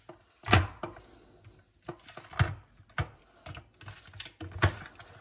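Hands working oiled octopus tentacles around in a metal roasting pan: irregular wet slaps and knocks against the pan, the loudest about half a second in.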